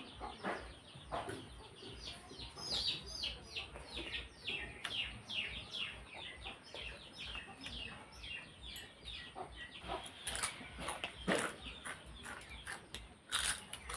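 Birds chirping in the background, a rapid run of short falling chirps several a second, over the soft wet sounds of a hand-eaten meal. A few sharp cracks near the end as a piece of papad is broken.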